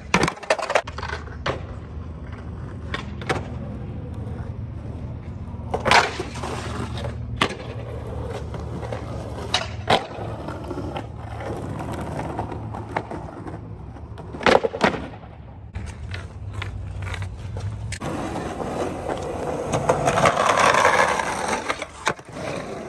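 Skateboard wheels rolling over rough, cracked asphalt with a steady rumble, broken several times by sharp clacks of the board hitting the ground. Near the end comes a louder scraping as the board grinds along a concrete ledge.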